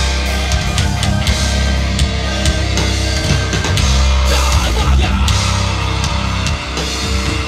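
Live heavy rock band playing loud through a PA system: electric guitars over heavy bass and drums.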